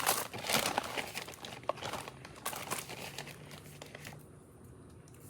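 Bags and small packets crinkling and rustling as toiletries are handled and taken out, dense for about four seconds and then dying down.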